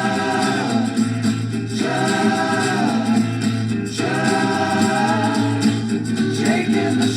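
Band music with group singing: several voices hold long notes in phrases of a second or two each, over bass and backing.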